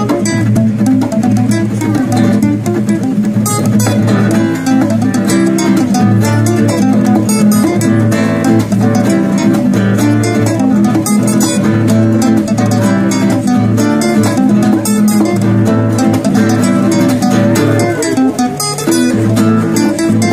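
Two amplified acoustic guitars, a steel-string acoustic and a nylon-string classical guitar, playing an instrumental piece together with plucked and strummed notes.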